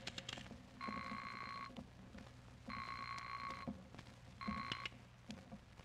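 Telephone bell ringing: two rings of about a second each, then a shorter third ring as the call is picked up. The sound effect is heard on an old transcription-disc recording of a radio play.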